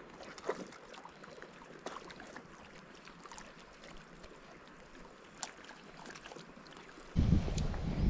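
Faint open-air quiet with scattered light clicks and ticks. About seven seconds in, wind suddenly buffets the microphone with a low rumble, the loudest sound here.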